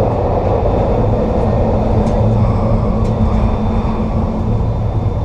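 SEPTA Kawasaki K-car light rail vehicle running, heard from inside the car: a steady rumble of wheels and running gear, with a low steady motor hum from about a second in until near the end.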